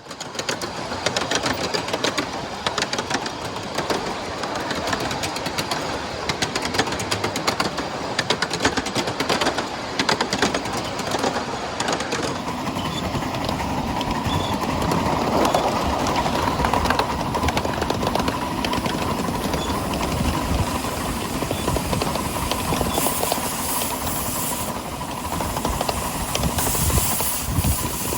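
A 7¼-inch gauge live-steam miniature train running along the track, with rapid wheel clicking over rail joints and running noise. A steady faint tone joins about halfway through.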